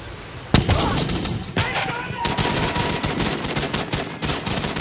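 Small-arms gunfire opens with a sudden loud shot about half a second in, then continues as dense, rapid volleys of many guns firing at once.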